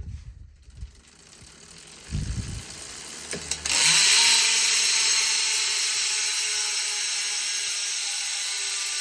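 Freewheeling buzz of a Roval Control SL rear hub with DT Swiss 180 internals and a 54-tooth ratchet: the ratchet clicks run so fast they merge into a loud, even buzz. Before it comes in, about three and a half seconds in, there are a few low knocks, and the buzz fades slightly near the end.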